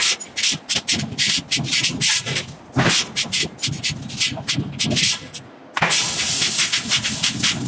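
Hot iron block being squeezed under a hydraulic forging press, with rapid irregular crackling and popping as the scale breaks off, over a low machine rumble. A steady hiss sets in near the end.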